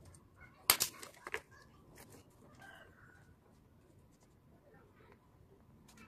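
A few sharp clicks and taps, about a second in, as a small switch is handled and scraped with a metal screwdriver, then only faint handling noise.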